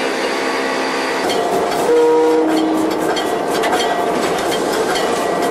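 Diesel locomotive heard from its cab: a short two-note blast of the air horn about two seconds in, over a rapid series of clangs from the locomotive bell.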